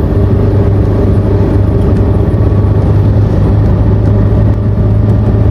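Suzuki Karimun small car's engine running at a steady pace with a constant low hum and road noise, starting abruptly.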